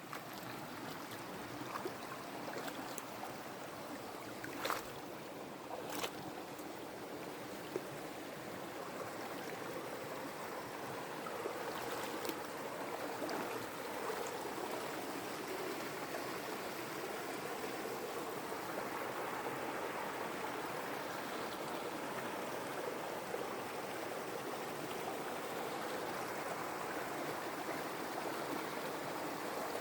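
Shallow forest creek running over rocks, a steady rushing and babbling of water that grows a little louder partway through. Two sharp clicks come about five and six seconds in.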